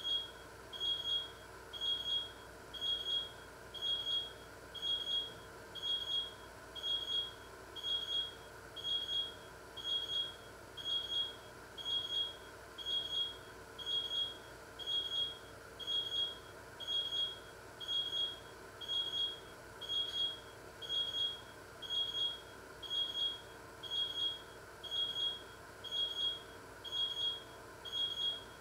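Electronic beeper sounding a short high-pitched beep about once a second, evenly and without a break, over a faint steady hum.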